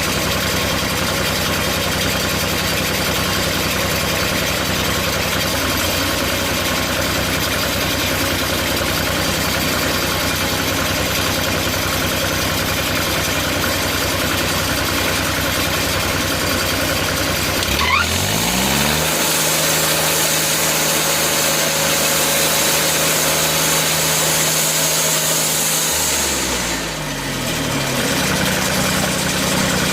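Sawmill engine idling steadily, then revving up about 18 seconds in and running fast with a high hiss for about eight seconds before dropping back to idle near the end.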